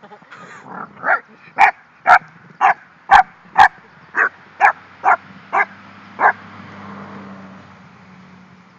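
English bulldog giving a fast run of about a dozen short, sharp yapping barks, roughly two a second, the gremlin-like noises she makes while guarding her bone. The barks stop a little past six seconds in, leaving a low steady sound.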